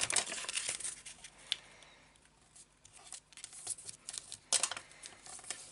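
A square of patterned paper being folded and creased by hand and pressed with a bone folder on a cutting mat: scattered dry rustles, scrapes and small taps. The sounds are loudest at the start and again about four and a half seconds in.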